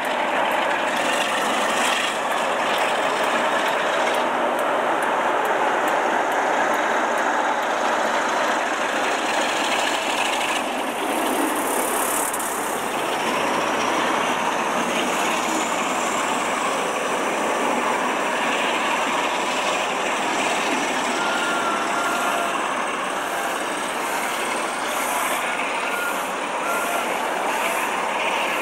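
Class 47 diesel locomotive working a passenger train away under power, with the coaches rolling past on the rails in a loud, steady rumble. A run of faint regular clicks comes near the end.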